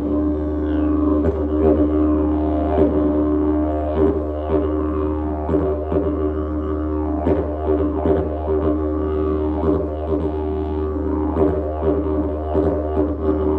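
Didgeridoo played with an unbroken low drone, its overtones shifting as rhythmic accents recur every half second to a second.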